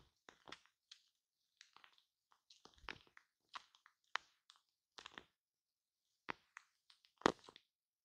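Shaving cream being squished and rubbed directly on a microphone: quiet, irregular crackling squishes in short strokes with brief pauses between them, the loudest about seven seconds in.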